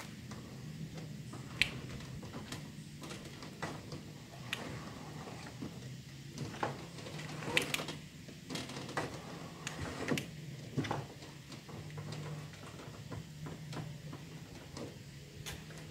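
Faint, scattered clicks and knocks from a cable-and-pedal steering system turning a Haswing trolling motor on its transom mount, with the motor not running; the sharpest knocks come about a second and a half in and in a cluster from about seven to eleven seconds in.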